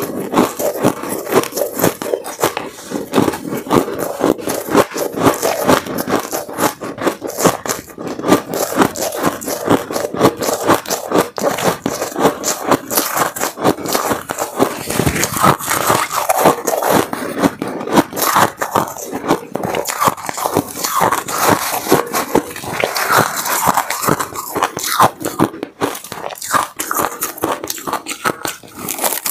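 Shaved ice being chewed and crunched in a dense, continuous run of crackling bites, with a metal spoon scraping through the ice in the tub.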